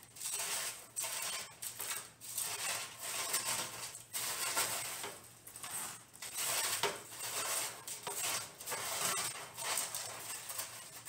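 Roasted sunflower seeds being scooped off a foil-lined baking sheet and dropped into a plastic zip-top bag: irregular crinkling of the foil and bag with the dry seeds pattering and rattling.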